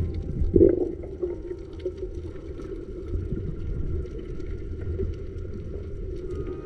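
Muffled underwater noise: a steady low rumble of moving water with faint scattered clicks and a brief louder swell about half a second in.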